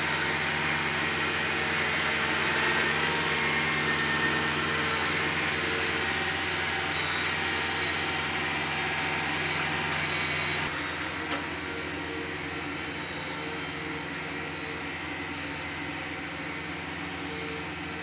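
Kubota MX5400 tractor's diesel engine running steadily. About ten seconds in the sound drops abruptly to a quieter level, and the engine keeps running underneath.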